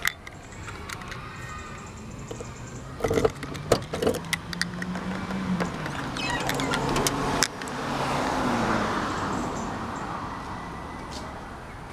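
Boot lock of a 2002 Proton Perdana being opened with its key: sharp clicks and knocks of the key and lock, then a run of small clicks ending in a louder clack about seven and a half seconds in as the latch releases. A passing car swells and fades over the last few seconds.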